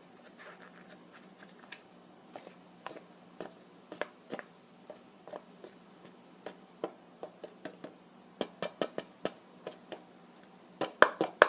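A spoon clicking and tapping against a cut-off water bottle as cornstarch is spooned through it into a balloon: scattered light clicks, coming quicker and louder over the last few seconds.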